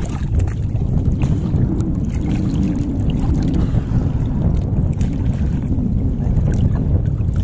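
Wind rumbling on the microphone over water sloshing around people wading chest-deep, with a few faint clicks.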